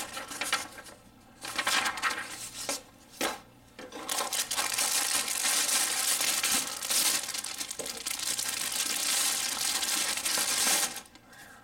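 A few short rustles, then from about four seconds in a long spell of crinkling from a clear plastic bag of model-kit sprues being handled and lifted out of a cardboard box, cutting off about a second before the end.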